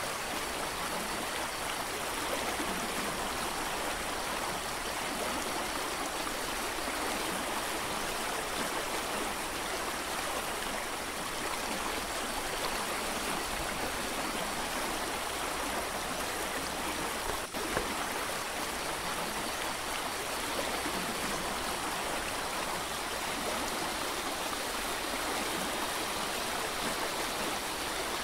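A mountain creek rushing steadily: an even, unbroken sound of flowing water.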